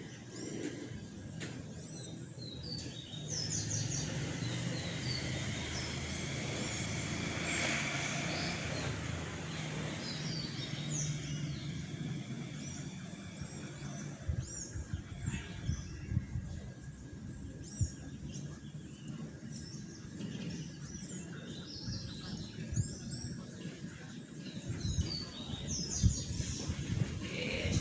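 Several birds chirping and calling, short high chirps scattered throughout, over a low rumble in the first half and scattered low thumps in the second half.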